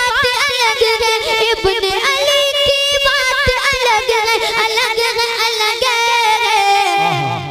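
A boy singing a naat, an ornamented vocal line with wavering held notes, amplified through a stage microphone. Near the end a held note slides down and fades.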